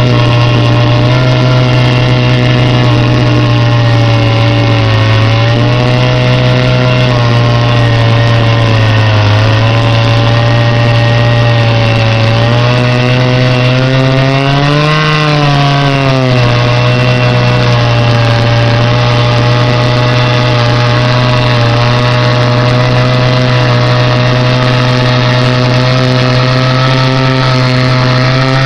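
Chainsaw in a chainsaw mill, running loud and steady as it rips a board lengthwise through a log cant. Its engine note wavers under the load of the cut and rises, then drops back, about halfway through.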